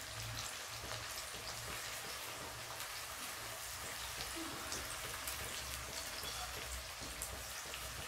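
Chopped garlic and onion sizzling in hot oil in an aluminium kadhai, a steady sizzle with many small crackles, as they fry toward brown.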